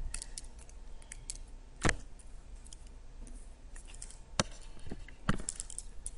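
A stylus clicking and tapping on a tablet during digital handwriting: scattered faint ticks, with three sharper clicks about two, four and a half, and five and a half seconds in.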